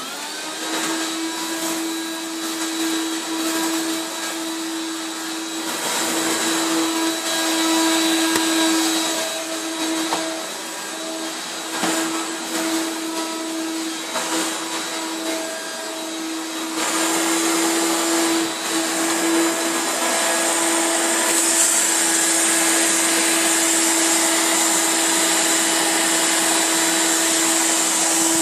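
Hoover Turbopower 2 upright vacuum cleaner running steadily on carpet, a motor hum and whine with rushing air, as it is pushed back and forth sucking up scraps of shredded paper. It gets louder and brighter about seventeen seconds in.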